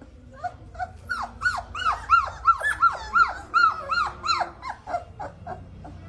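A puppy whining in a rapid series of high, arching yelps, about three a second, which become shorter and fainter near the end.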